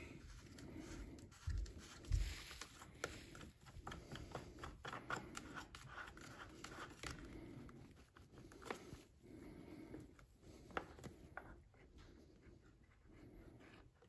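Faint clicks, taps and rubbing as hands handle the plastic top cover of a Stihl 046 chainsaw and turn its cover knob to take the cover off.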